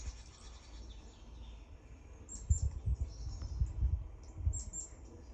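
Small birds chirping in short, high calls, played through a laptop speaker from a bird video. Several dull low thumps come in the middle.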